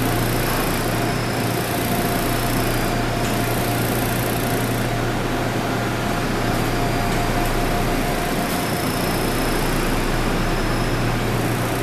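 Steady interior hum of a Seoul Subway Line 7 electric train car standing at a platform, with the ventilation and onboard electrical equipment running and a faint steady whine over it. The train begins to pull away near the end.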